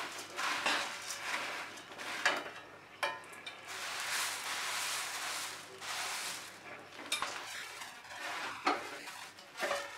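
Puffed paddy (khoi) rustling as it is tossed and stirred with two steel spoons in a metal kadai, with now and then a knock or scrape of a spoon against the pan. The khoi is being mixed into cooled date palm jaggery syrup.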